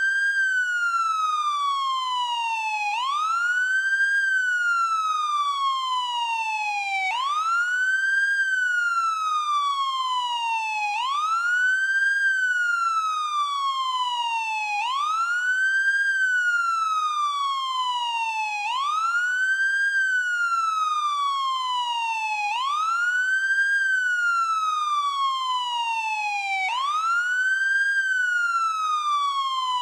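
American police car siren sounding the wail tone: the pitch rises quickly and then falls slowly, over and over, about one cycle every four seconds.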